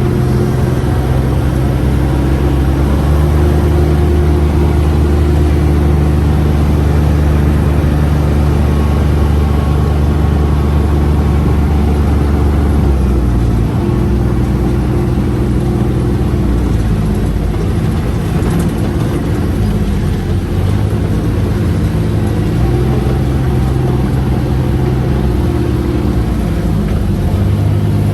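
Four-seat UTV's engine running as it is driven, a steady low hum that shifts pitch about halfway through and again about two-thirds of the way in. The driver finds the heavy UTV slow to pick up speed.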